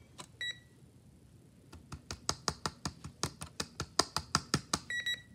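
A short electronic beep from a Snap Circuits electronics kit circuit, then a fast run of sharp plastic clicks as a hand presses on the board's snap-together parts, and another beep at the same pitch near the end.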